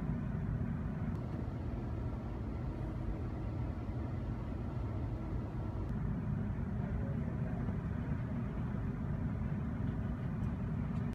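A steady low rumble of background noise, with a faint thin tone over it for the first half.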